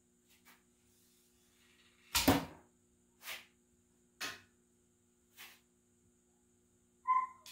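White oak longbow being flexed and handled by its string: a loud sharp snap about two seconds in, followed by three fainter knocks about a second apart, and a brief high squeak near the end.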